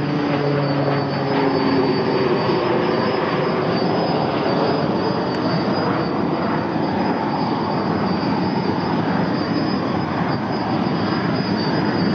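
Sikorsky S-64 Skycrane helicopter running on the ground with its twin turboshaft engines and main rotor turning: a loud, steady rush of engine and rotor noise under a constant high turbine whine.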